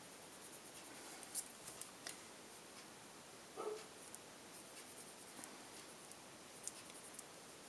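Faint scratching of a Prismacolor coloured pencil on paper as colour is laid down in short strokes, with a few light ticks.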